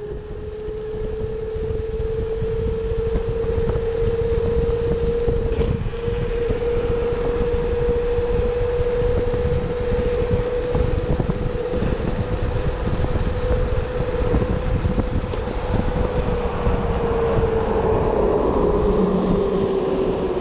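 Kaabo Skywalker 10H electric scooter's 800 W rear hub motor whining at a steady pitch while riding at speed, over wind buffeting the microphone and road rumble. The whine rises slightly as it gathers speed and drops in pitch over the last few seconds as the scooter slows.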